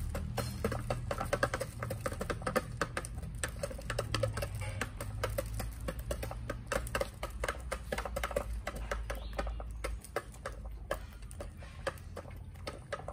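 Chickens pecking at feed, their beaks tapping quickly and irregularly on the plastic tray of a feeder and on the dirt ground, several taps a second. A low rumble sits underneath and drops away about ten seconds in.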